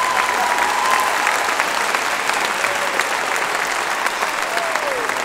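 Audience applauding: dense, steady clapping, with a few voices calling out over it.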